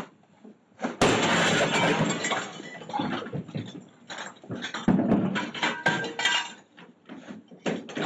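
Glass smashing with a sudden loud crash about a second in, followed by several seconds of clattering, knocks and further breaking.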